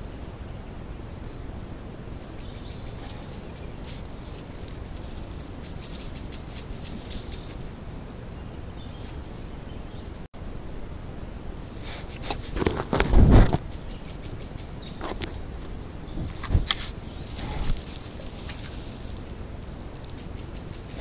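Faint high insect-like chirping over the camera trap's steady hiss. In the second half, a large furry animal presses against the trap, with its fur rubbing and knocking on the housing; the loudest knock comes a little past the middle, with another shorter one soon after.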